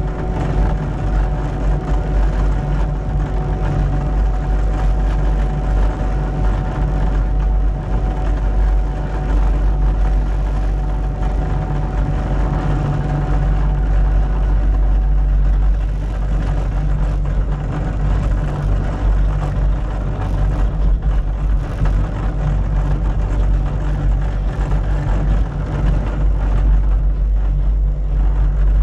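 Cat 289D3 compact track loader with a vibratory roller compactor attachment working, its diesel engine running steadily with a heavy low rumble and a faint steady whine that fades out about halfway through.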